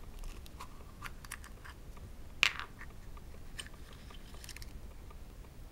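Yellow plastic Kinder Surprise capsule being worked open by hand, with small plastic clicks and one sharp snap about two and a half seconds in as the halves come apart. Light crinkling of the wrapped toy packet inside follows.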